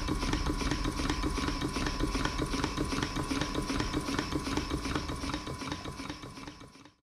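Stuart Models beam engine running at speed, a rapid, even beat of puffs and clicks from the cylinder and linkage. It fades out near the end and stops.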